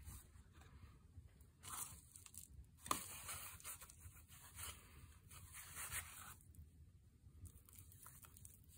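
Faint squishing and rubbing of wet cement as it is pressed and rolled by hand into a lump, with a single sharp tap about three seconds in.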